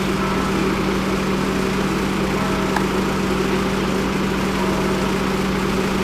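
Vehicle engine running steadily, an even drone with a constant low hum.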